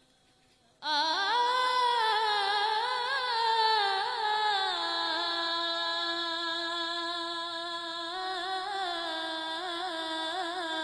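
A boy's voice singing a naat unaccompanied into a microphone: after near silence, it starts abruptly about a second in and holds long, wavering, ornamented notes without words, stepping lower about halfway through.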